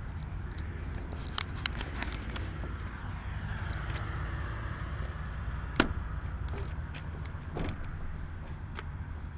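A few clicks and knocks from the rear latch and door of a fiberglass Leer truck topper being worked open, the sharpest about halfway through, over a steady low rumble.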